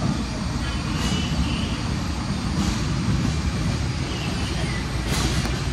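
Loud, steady rumble of warehouse sorting-line machinery and conveyors, with a few sharp knocks about a second, two and a half seconds and five seconds in.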